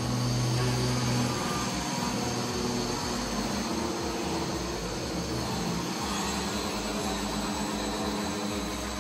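Handheld electric sander running steadily as it sands old wooden floorboards down to bare wood.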